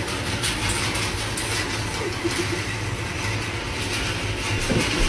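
Hay bale elevator running: a steady low motor hum with the chain conveyor and metal frame rattling and clicking.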